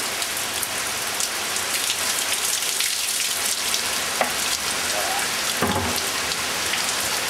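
Heavy downpour: a steady hiss of rain falling on roofs and trees, with close drops ticking and splashing.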